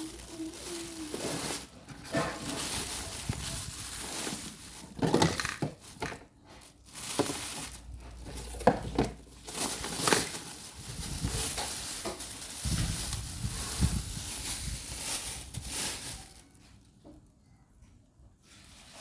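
Packaging being handled during unboxing: irregular rustling and crinkling with scattered knocks and clicks, which stop about three-quarters of the way through.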